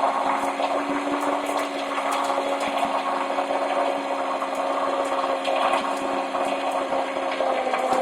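Electric winch motor running steadily under load, winding in cable to raise an antenna mast; the hum stays at a constant pitch.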